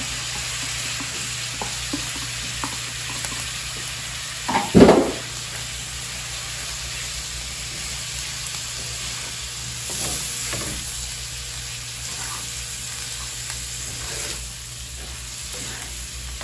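Meat with freshly added tomato frying on the iron griddle plate of a wood-fired stove: a steady sizzle with stirring. A single short, loud sound about five seconds in stands out above the sizzle.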